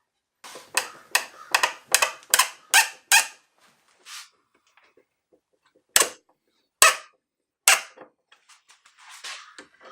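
Miter saw's mounting bolts being tightened down with a wrench: a quick even run of about eight squeaky strokes, then three sharp separate knocks and a few faint clicks.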